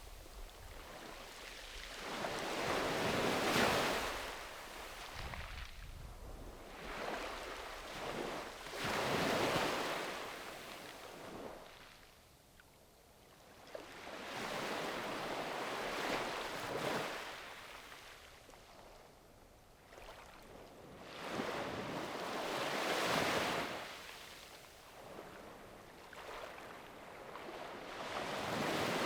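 Small sea waves breaking and washing up on a beach, one after another, each swelling and fading over a few seconds, with a short lull near the middle.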